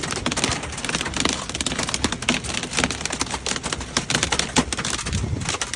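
Hailstones striking hard surfaces: a dense, irregular patter of sharp clicks.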